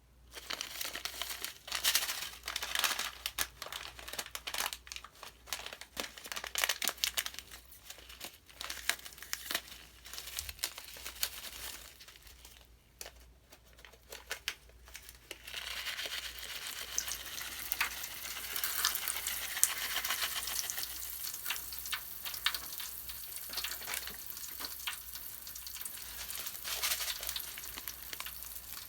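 Soap crackling and crinkling in dense clicks, settling into a steadier fizzing sizzle about halfway through.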